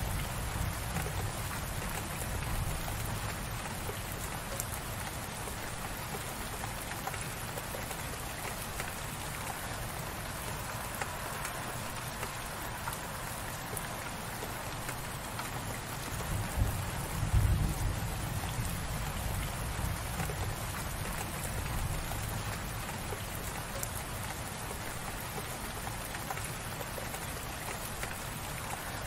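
Light rain falling steadily, an even hiss of many drops, over a low rumble that swells briefly a little past halfway.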